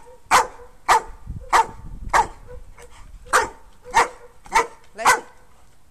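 Young German Shepherd-type dog barking: two runs of four sharp barks, a little over half a second apart, with a pause of about a second between the runs.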